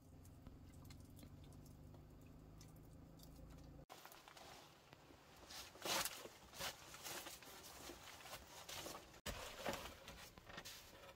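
A faint, steady low hum for the first few seconds. Then footsteps on leaf-strewn ground: irregular rustling steps, the loudest about six seconds in.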